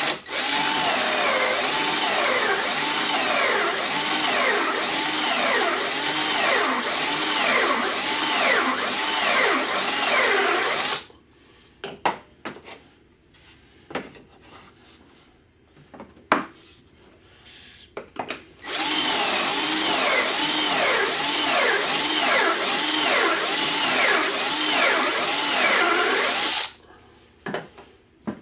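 Cordless drill boring pocket holes through a pocket-hole jig into a board: two long drilling runs, the first about eleven seconds and the second about eight, with a few knocks and clicks between them.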